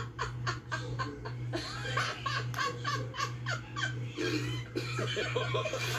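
A person laughing in quick repeated bursts, over a steady low hum.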